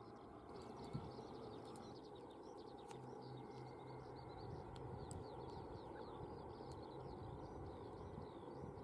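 Many small birds chirping continually, over the faint low drone of a distant twin-engine propeller plane. A single short knock about a second in.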